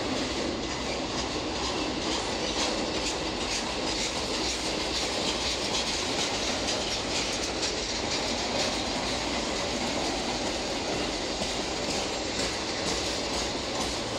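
Norfolk Southern autorack freight train rolling past slowly, its wheels clicking steadily over the rail joints.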